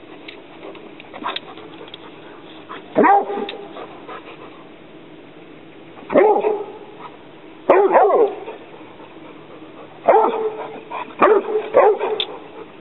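Young Rhodesian Ridgeback barking at an alligator snapping turtle: about seven loud barks, a few seconds apart at first and coming closer together near the end.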